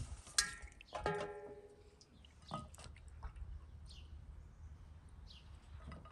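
Two metallic clanks in the first second or so, the second ringing on briefly as it dies away, followed by scattered short bird chirps.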